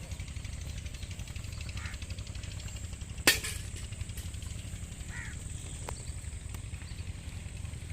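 A single sharp crack about three seconds in, over a steady low rumble, with two faint animal calls, one before and one after the crack.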